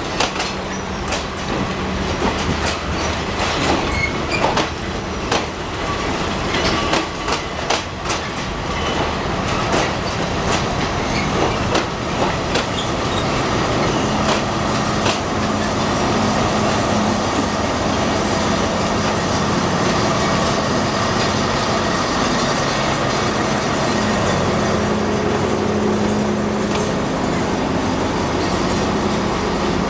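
State Railway of Thailand passenger train being pushed backwards slowly into the station, carriages first, with the wheels clicking and knocking over rail joints through the first half. From about halfway a steady hum from the diesel locomotive builds and grows stronger as the locomotive comes alongside near the end.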